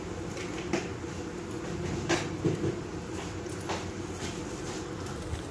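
A few soft knocks and rustles of kitchen things being handled, over a steady background hum.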